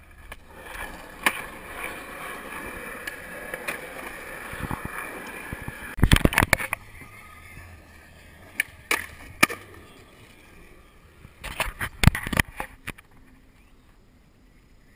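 Skateboard wheels rolling over concrete, then the board clattering and slapping down in loud clusters of sharp knocks about six seconds in and again around twelve seconds, with a few single clicks between.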